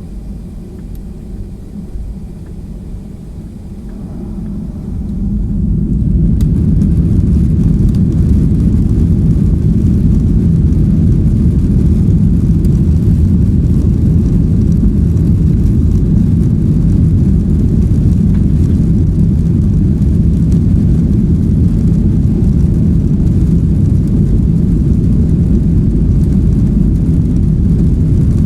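Airliner jet engines spooling up to takeoff thrust about five seconds in, then a loud, steady deep roar through the takeoff roll, heard from inside the cabin.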